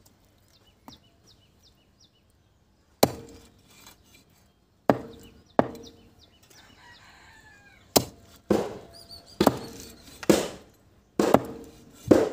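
Large knife chopping chicken pieces on a wooden stump block: nine sharp, separate chops. The first comes about three seconds in, and they come faster near the end.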